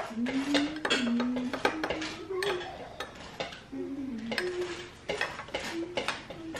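Dishes and cutlery clinking in a kitchen as tea is made: a run of short clicks and clinks, with high-pitched voices talking over them at times.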